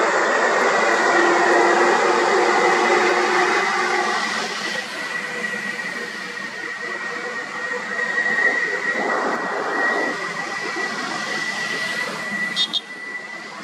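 Diesel bus engines running close by as buses move past on the road, loudest for the first four seconds and then easing off, with another vehicle passing a few seconds later. A thin, steady high-pitched tone runs under it throughout.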